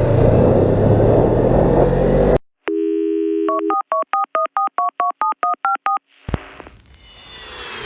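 Suzuki GSX250R's parallel-twin engine running under way with wind noise, cut off abruptly about two and a half seconds in. A telephone dial tone follows, then about a dozen quick touch-tone dialing beeps, around five a second. Near the end a swelling whoosh comes up.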